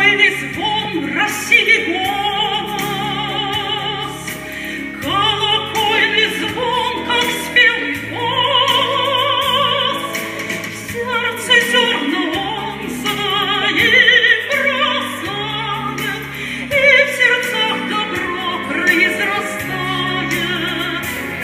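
A woman singing in a classical, operatic style with a wide vibrato, over an instrumental accompaniment of held bass notes.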